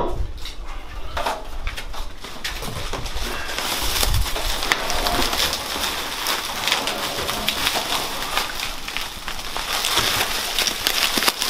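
Bubble wrap and packing peanuts crinkling and rustling as a wrapped item is pulled out of a cardboard box, a dense run of small crackles, preceded by a few knocks in the first couple of seconds.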